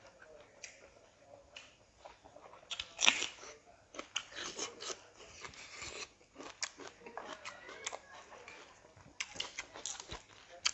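Close-up chewing and biting of food, with irregular wet mouth clicks and crunches, the loudest about three seconds in.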